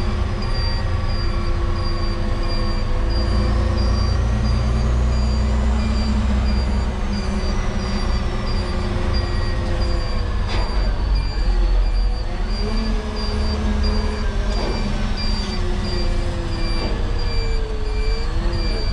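LGMG CMT96 off-highway mining dump truck driving, heard from inside the cab: a steady diesel engine and drivetrain rumble whose pitch wavers up and down in the second half, with a faint high-pitched tone pulsing at an even pace over it.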